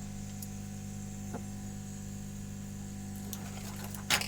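Hot-air rework station running with a steady hum and a faint high whine, heated for desoldering a chip. A few faint ticks, then two loud sharp clicks near the end.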